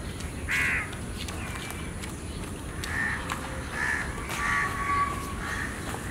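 Crows cawing, several short calls spread through, over a steady hiss of rain.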